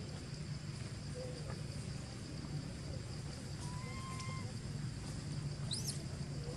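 Outdoor woodland ambience: a steady high insect drone over a steady low rumble. A short flat whistled tone comes about four seconds in, and a quick bird chirp near the end.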